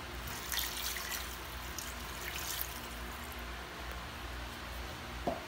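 Water poured into a stainless steel pot of marinated meat: a faint splashing trickle, strongest in the first few seconds. A light knock near the end.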